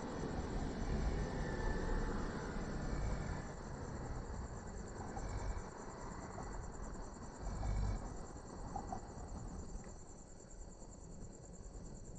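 Crickets chirring steadily, over the low, slow snoring breaths of a resting cow. The snoring is strongest in the first few seconds and comes again about eight seconds in.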